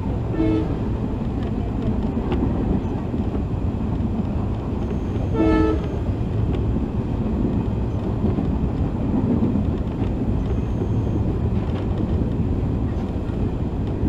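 Jan Shatabdi Express passenger train running, with a steady rumble of a moving coach heard from a non-AC coach. The locomotive horn sounds two short blasts, about half a second in and again about five and a half seconds in.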